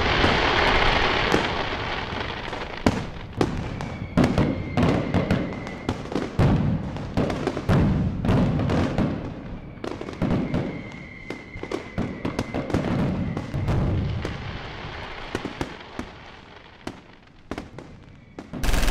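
Fireworks display: deep booms of shells bursting among dense crackling and popping, with a thin steady whistle twice. It grows quieter toward the end.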